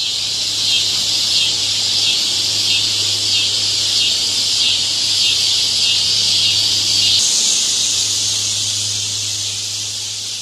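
Cicadas buzzing: a loud, steady, hissing drone with a faint low hum beneath it, shifting slightly about seven seconds in.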